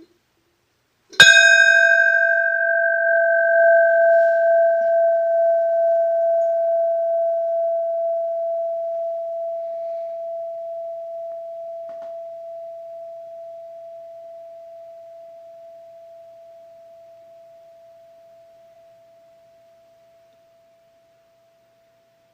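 Cast bell for the Matthew Turner struck once, about a second in. Its bright upper overtones die away within a few seconds, leaving one steady tone with a slow pulsing beat that rings on and slowly fades out over about twenty seconds.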